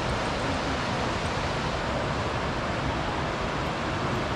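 Creek water rushing over small falls and shoals: a steady, unbroken rush.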